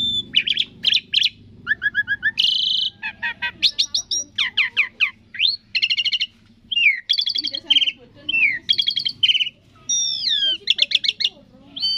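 Asian pied starling (jalak suren) singing a varied song of quick chirps, rapid trills and slurred whistles that slide down and up in pitch, phrase after phrase with short pauses.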